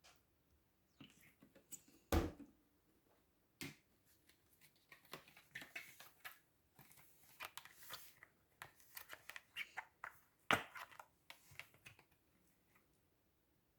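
Hands working a batch of slime and its containers: a run of small sticky crackles and clicks, with two sharp knocks, one about two seconds in and another about ten and a half seconds in.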